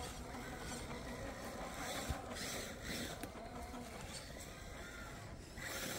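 Electric motor and gear drive of a radio-controlled rock crawler whirring faintly and unevenly as it crawls over concrete rubble.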